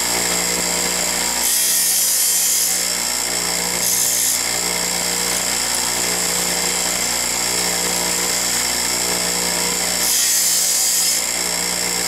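Bench grinder with a silicon carbide wheel running steadily, with a drill bit's point ground against the wheel three times, each a brief high hiss of grinding about a second or less long. These are the passes that grind the bit's point on each side in turn during sharpening.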